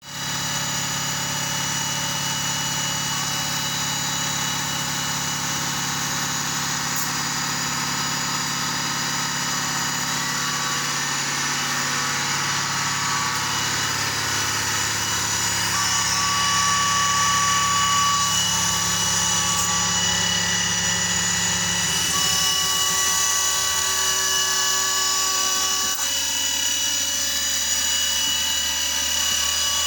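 Power machine tool running steadily while cutting UHMW plastic, a motor whine made of several steady tones. The mix of tones changes about three quarters of the way through, as the cut changes.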